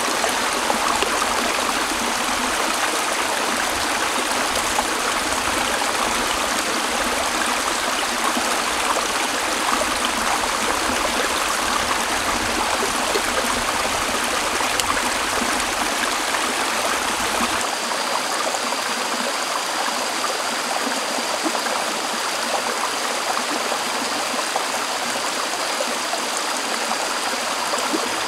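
Shallow rocky stream flowing steadily, an even rush of water over stones.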